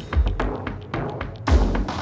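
Background music with deep, heavy drum hits on a steady beat.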